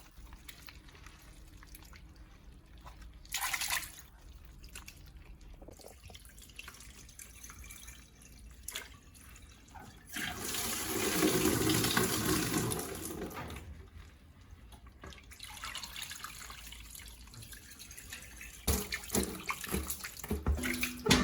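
Water running and splashing into a basin, loudest for about three seconds near the middle, with a brief splash a few seconds in. Scattered sharp knocks come near the end.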